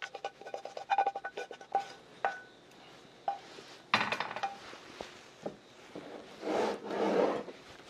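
A wooden spatula knocking and scraping against a metal wok while stir-fried udon is scraped out into a bowl. Quick taps in the first two seconds or so, each leaving the wok ringing with a short metallic tone, then a few single knocks and a scraping stretch near the end.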